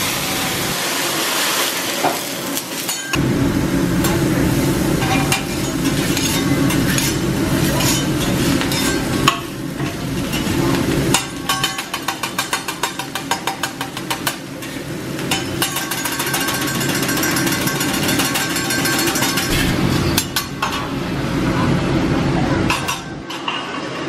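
Food sizzling on a hibachi flat-top griddle while the chef's metal spatulas scrape, clatter and chop against the steel. It begins with the rush of a flame flaring up, and about halfway through there is a quick run of rhythmic chopping taps.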